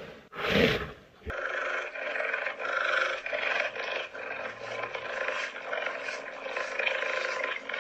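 A hippopotamus calls once, a short loud roaring grunt with a wavering pitch, in the first second. After it, a quieter, steady layer of high chirping calls with light rustling.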